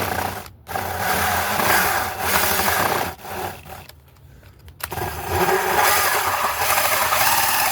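DeWalt drill spinning a 4-inch hole saw in reverse against wood, scoring a starting groove because there is no pilot bit to guide it. It runs in bursts, stopping briefly about half a second in and for about a second around four seconds in.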